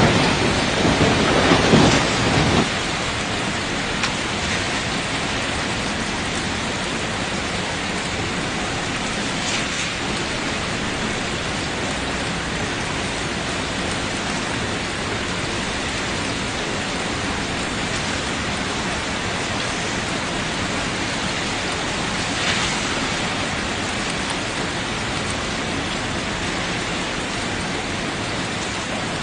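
Heavy rain falling steadily, a dense even hiss. A low thunder rumble fades out in the first couple of seconds.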